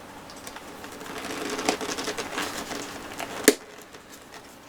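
Rustling handling noise with scattered light clicks, and one sharp click about three and a half seconds in.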